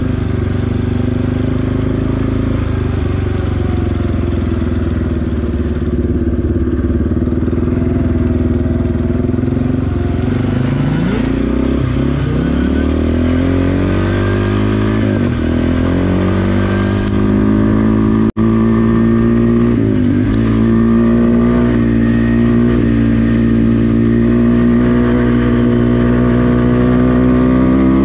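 Yamaha 350 sport quad engine running under way on a dirt trail, its pitch dropping and climbing again several times as the throttle is eased and reopened. A brief cut-out a little past halfway.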